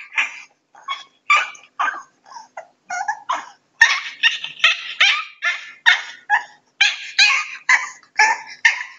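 Young French bulldog puppies whimpering and yipping in a rapid string of short, high cries, about two a second, softer for a few seconds and louder again about four seconds in.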